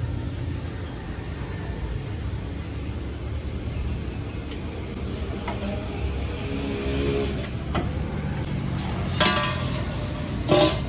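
Old car exhaust pipe and muffler being worked free from under the car and dragged out onto concrete, giving scattered metal scrapes and clanks, a cluster about nine seconds in and the loudest one near the end, over a steady low rumble.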